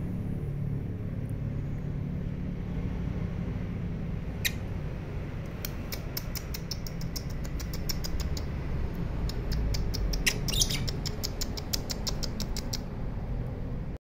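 Caged lovebirds calling: one sharp high call about a third of the way in, then a fast run of short, high, clipped chirps, about five a second, lasting some seven seconds, over a low steady rumble.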